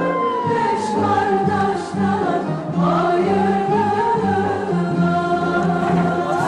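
Background music with singing voices over a repeating low note pattern.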